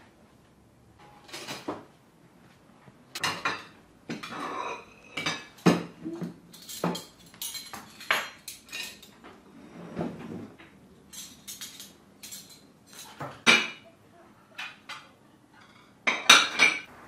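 Ceramic plates and metal spoons clinking and clattering as a table is set, in many short, irregular knocks with a louder clatter near the end.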